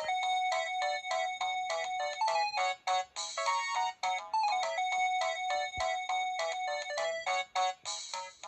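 Corise KS728 mobile phone playing one of its built-in ringtones: a quick electronic melody of short, bright notes, about five a second, in a phrase that repeats.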